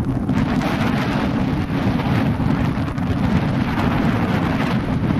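Wind buffeting the camera microphone: a steady low rumble with a hiss above it.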